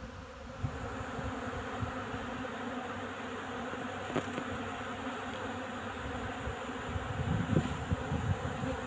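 Swarm of honey bees buzzing steadily as they crowd onto flour laid out as an outside pollen-substitute feed, foragers working it in place of pollen. A few low rumbles on the microphone near the end.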